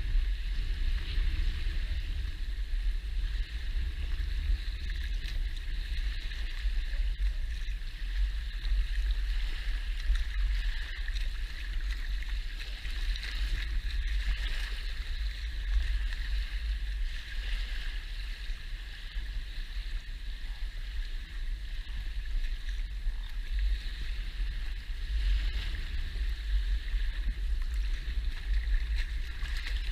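Shallow lagoon water lapping and washing over sand right at the microphone: a steady low rumble under a continuous hissing wash, with no breaks.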